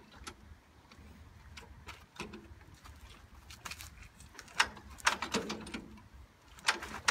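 1930s Fordson tractor engine being hand-cranked from cold: sharp, irregular clacks and knocks from the starting crank, loudest about two-thirds of the way through, with the engine not catching.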